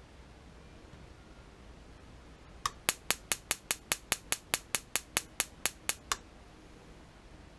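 Homemade spark igniter for a water heater's pilot, built on a 6 V DC high-voltage generator module, firing a rapid train of sharp snapping sparks. The sparks come about five a second for roughly three and a half seconds, starting a little over two and a half seconds in.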